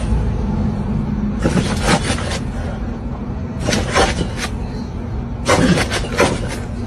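Two dogs play-fighting, with four short flurries of barking over a steady low rumble.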